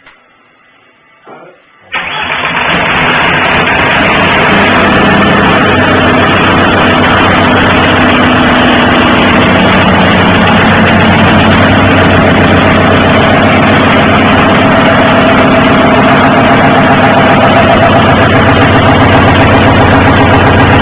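Seat Córdoba 1.9 TDI (ASV) four-cylinder diesel engine starting for the first time after its rebuild: it catches suddenly about two seconds in, then runs loud and steady.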